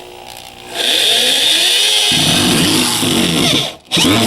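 Power screwdriver motor running for about three seconds, driving a screw into the wall; its pitch shifts as the screw goes in. It starts just under a second in and stops near the end.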